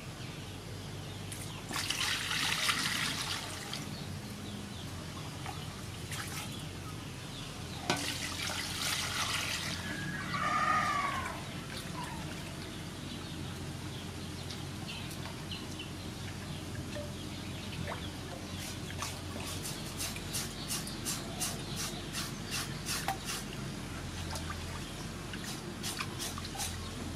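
Water splashing as raw pork is washed by hand in a metal bowl of water, with a bird calling once about ten seconds in. From a little past the middle, a knife scrapes the wet pork skin in quick repeated strokes, about four a second.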